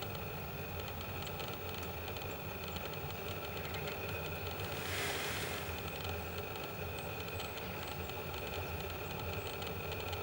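Steady low mechanical hum, with a brief burst of hiss about five seconds in.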